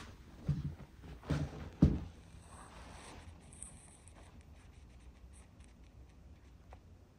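A few dull knocks in the first two seconds, the loudest just before the two-second mark, then faint scratching and light clicks.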